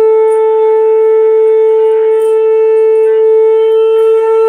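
Conch shell (shankha) blown in one long, steady, unwavering note that cuts off suddenly at the very end.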